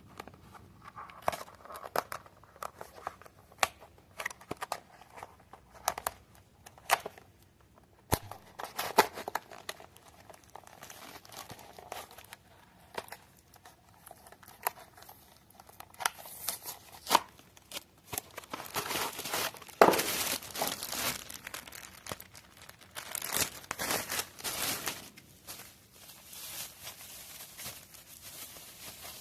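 Packaging being handled and torn open by hand: crinkling and tearing with scattered sharp clicks and taps, busiest and loudest in the middle stretch.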